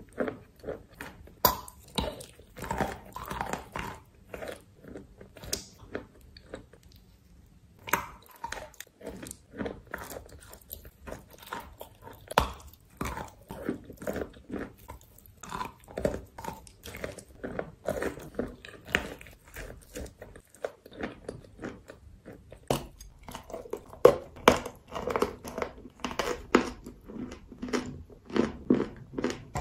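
A person biting and chewing paste-coated chalk: an irregular run of sharp crunches and chewing, with a brief quieter pause partway through.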